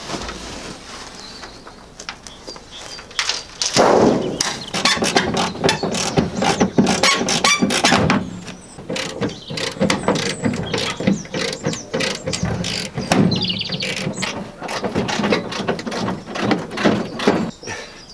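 Hand tools working at seized, corroded bolts on a Land Rover Series 3's body: a rapid, uneven run of clicks and knocks starting about four seconds in.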